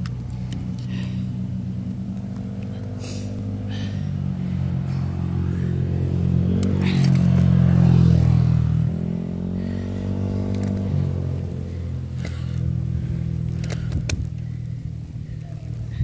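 Motor vehicle engine running steadily, building to its loudest about eight seconds in and then easing off, with a few sharp rattles.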